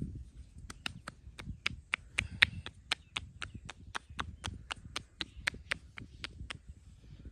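Percussive massage tapping: hands striking the body in a quick, even series of crisp slaps, about four a second, starting about a second in and stopping shortly before the end.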